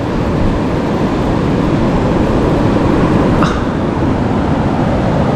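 Steady, loud rush of rough surf and wind buffeting the microphone, with a faint short click about three and a half seconds in.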